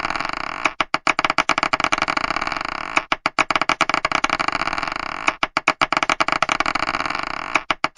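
Marbles clacking and rattling in a cycle that repeats about every two and a half seconds. Each cycle starts with a few sharp clacks, followed by a dense run of rapid clicks that slowly fades.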